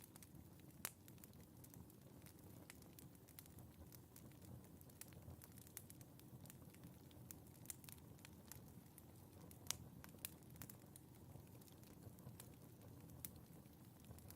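Wood fire crackling in a fireplace: faint, irregular sharp pops over a low steady rumble, with two louder pops, one about a second in and another about ten seconds in.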